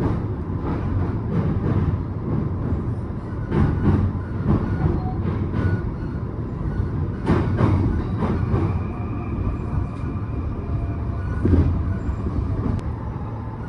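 Inside a JR Joban Line commuter train pulling into its terminal: a steady rumble of the running train, broken by several heavy knocks as the wheels cross rail joints and points. From about two-thirds of the way in, a faint thin high whine is added.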